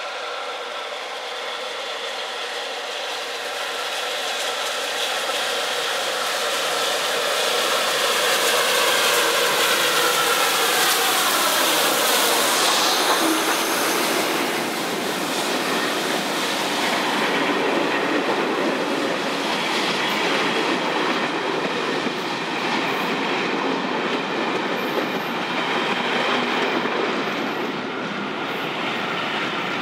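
Bulleid Light Pacific three-cylinder steam locomotive approaching at speed and passing close by, loudest around ten to twelve seconds in, its sound dropping in pitch as it goes past. After that a long train of coaches runs by with a steady clatter of wheels over the rails.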